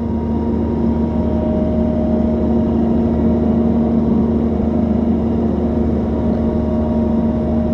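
Doosan DX140 excavator running steadily: a constant engine hum, with a higher steady tone joining about a second and a half in.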